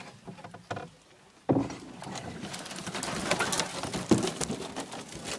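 Leaves and twigs rustling and crackling against the camera as the canoe pushes into the overhanging bankside vegetation. It starts suddenly about a second and a half in, with many small snaps and clicks.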